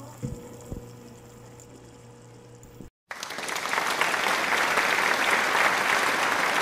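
Applause: a crowd clapping, cutting in suddenly about three seconds in after a brief gap and holding steady and loud. Before it, only a faint low hum with two light clicks.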